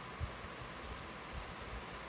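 Mustard and cumin seeds frying in hot oil in a pan: a steady sizzling hiss with a few soft low thumps.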